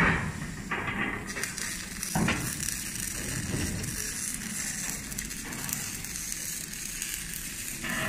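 Factory workshop background noise: a steady crackling hiss, with a knock at the start and another about two seconds in.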